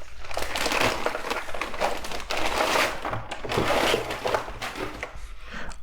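Plastic packaging crinkling and rustling as the keyboard is unwrapped by hand, a continuous crackly rustle that eases briefly near the end.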